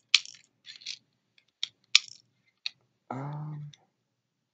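BBs being pushed from a speed loader into a CO2 blowback pistol magazine: a handful of sharp, uneven small clicks. A short low hum from a voice comes a little after three seconds in.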